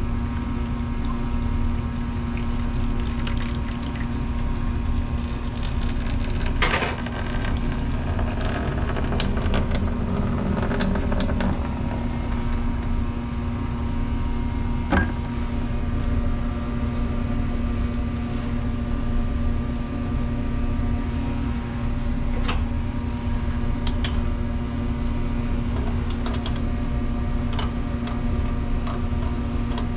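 ADS L commercial dishwasher motor running with a steady, loud hum and whine; its bearing has gone bad. A few sharp clicks or knocks come over it, about seven, fifteen and twenty-two seconds in and several near the end.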